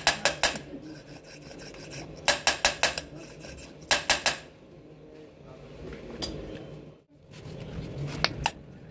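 Light metal-on-metal clinking from a round metal cap being worked into its hole on a diesel engine cylinder head: three quick runs of four or five clicks, then a few single clicks near the end.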